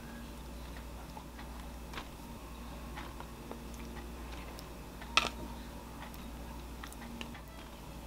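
Faint clicks and soft taps of metal tongs setting pineapple chunks onto raw pork steaks in a paper-lined wire air-fryer basket, with one sharper click about five seconds in, over a steady low hum.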